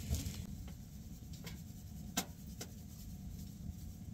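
Onion powder shaken from a spice shaker: a handful of scattered sharp taps and light rubbing, over a steady low rumble.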